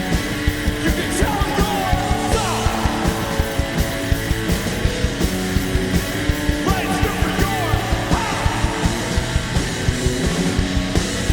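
Live punk rock band playing: electric guitar and bass over a fast, steady drum beat, with yelled vocals.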